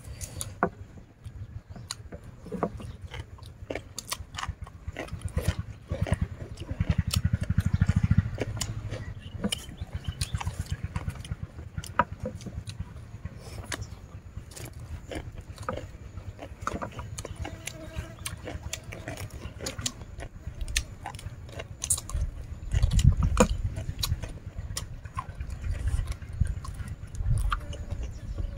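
Close-up eating sounds: two people chewing and crunching papaya salad and fried chicken, with many sharp clicks of chopsticks and food. Two louder stretches of low rumble, about a quarter of the way in and again about three quarters of the way through.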